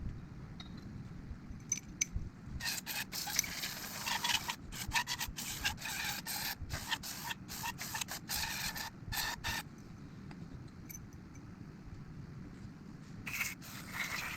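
Hand work on parts of a motorcycle front fork: irregular bursts of scraping and rubbing, broken by short clicks, starting about three seconds in and stopping near ten seconds, with another short scrape near the end.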